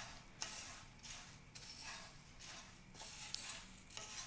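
Spatula stirring dry roasted poha flakes, nuts and curry leaves in a pan: a crisp rustle and scrape about twice a second.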